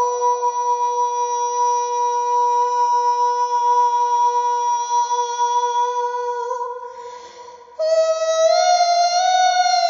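Soprano voice singing without words, holding one long, very steady high note, then a brief breathy gap about seven seconds in before a new, higher note is held.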